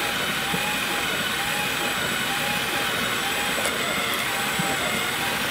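3D-printed compost shredder running: its green plastic cutter discs turn, driven by a power drill, and shred food scraps. The result is a steady motor whine that wavers in pitch in a regular cycle about every three-quarters of a second, with a couple of faint clicks about two-thirds of the way through.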